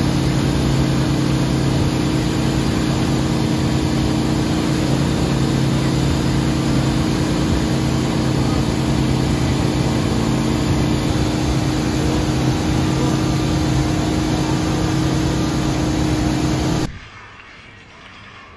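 Wakesurf boat's inboard engine running steadily under way, over the rush of the churning wake and wind. It cuts off abruptly about seventeen seconds in, leaving quiet room sound.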